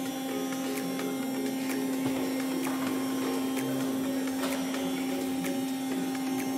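Hydraulic tilting drive of a Booston ER-03H butterfly assembly table running with a steady hum while one table tilts up toward vertical, with scattered light clicks.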